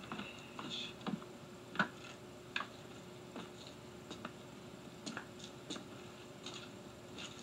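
Scattered short clicks and taps at irregular intervals over a faint steady hum.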